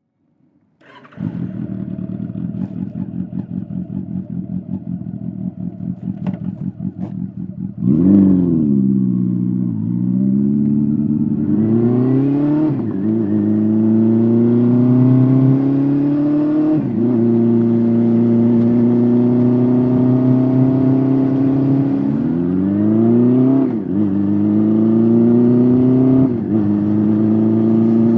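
Honda CB400SF's four-cylinder engine through a Yoshimura slip-on exhaust. It idles with an even pulse, is blipped once sharply about eight seconds in, then pulls away and accelerates through the gears, its pitch climbing and dropping back at each of several shifts.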